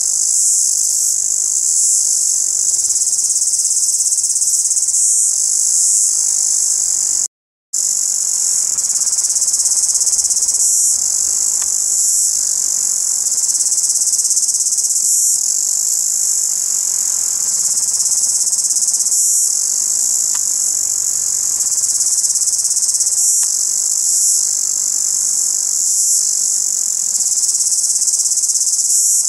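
A cicada calling: a loud, steady, high-pitched buzz that breaks off completely for a moment about seven seconds in.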